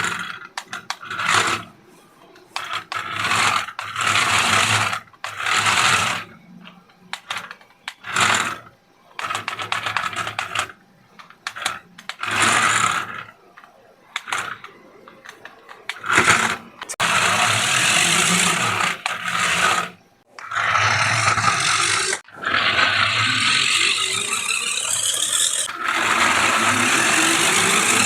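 Toy RC stunt car's small electric motors and plastic gears whirring in short bursts, then running for longer stretches of several seconds in the second half.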